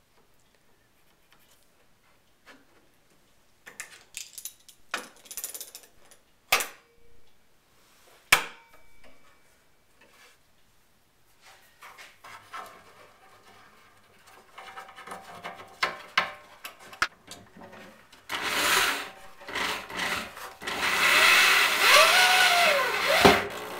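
Scattered clicks and rubbing of wood being handled and a locking C-clamp being set, then an electric drill driving pocket-hole screws into a wooden face frame, its motor pitch rising and falling in the last few seconds.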